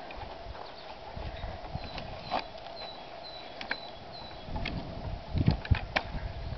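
Steel shovel spade digging in loose, dry garden soil: irregular crunches and scrapes as the blade cuts in and soil is turned over, with the heaviest thuds about five to six seconds in.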